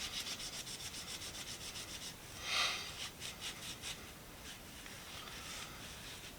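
Quick back-and-forth wiping strokes on a metal flare nut wrench, about five a second, cleaning off acetone and paint staining. A longer, louder swipe comes about two and a half seconds in, then more strokes, and the rubbing fades after about four seconds.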